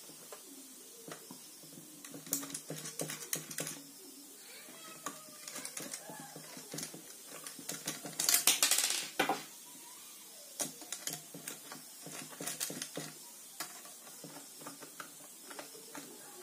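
Small screwdriver clicking and scraping on the brass terminal screws of wall switches while wires are fitted, with scattered sharp ticks. A louder scrape lasting about a second comes a little past the middle.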